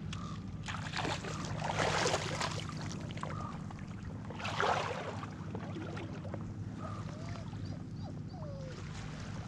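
Hooked pink salmon thrashing and splashing at the water's surface while being played on a fly line, in two bursts, the second shorter.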